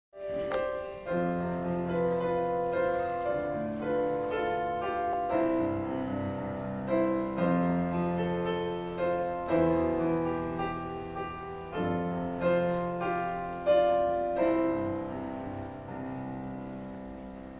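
Grand piano playing slow, ringing chords, each struck and left to sustain, the music dying away near the end.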